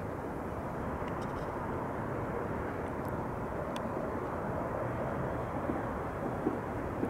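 Steady, distant rumble of a jet aircraft engine heard across the valley, with a few faint ticks.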